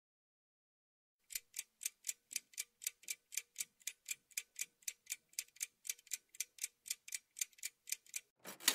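Countdown-timer clock-ticking sound effect: steady, even ticks at about four a second, starting about a second in. Right at the end a louder hit begins the answer-reveal chime.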